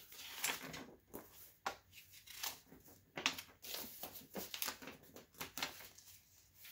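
Hands sorting through small die-cast model parts and paper on a work board: a run of light, irregular clicks, scrapes and rustles.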